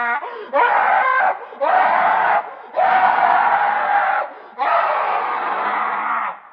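Four harsh, raspy monster screams from a creature sound effect, each about a second or more long, with short breaks between; the last two are the longest.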